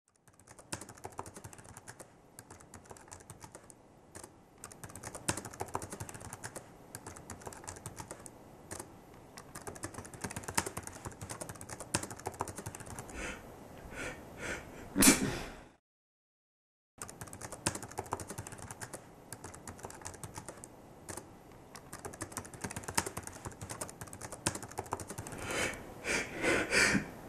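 Typing on a computer keyboard, a steady patter of key clicks. Twice it is broken by a person's rising, gasping 'ah... ah...' as a sneeze builds. The first run ends in a short loud burst about fifteen seconds in, followed by a second of dead silence. The second run climbs louder near the end.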